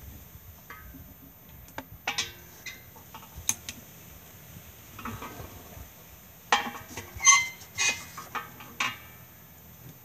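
Sharp clicks and clinks with a brief ring, scattered at first, then in a louder cluster from about six and a half to nine seconds in, as a strap is unbuckled and pulled off a wooden beehive nuc box.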